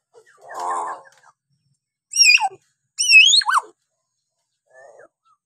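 Hill myna calling: a short lower-pitched call, then two loud whistled calls about a second apart, each swooping up and down in pitch and dropping steeply at the end.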